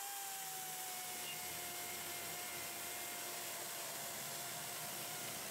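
DeWalt 60-volt cordless chainsaw cutting through 4x4 lumber: a steady electric motor whine over chain-and-wood hiss, sagging slowly in pitch as the chain loads up in the cut.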